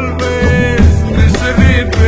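Background song with a steady beat and bass, a melody line over it.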